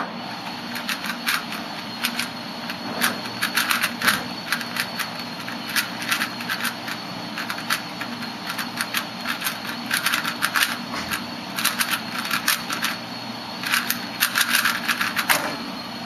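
A 3x3 Rubik's Cube being turned rapidly by hand: fast, irregular clicking and clacking of its plastic layers, in dense flurries with short pauses between them.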